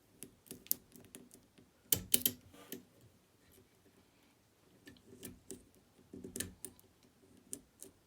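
Irregular small metallic clicks and taps from a lock pick pushing the sliders of a Fontaine 7-slider pump lock held under tension, with the loudest cluster about two seconds in and another around six seconds.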